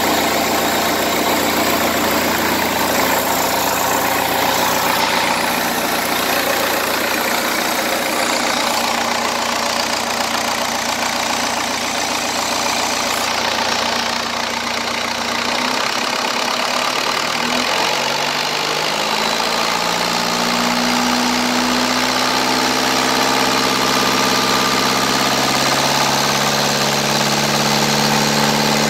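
Cummins 4BT four-cylinder turbodiesel running steadily, its speed rising over a few seconds a little past halfway and then holding at the higher speed.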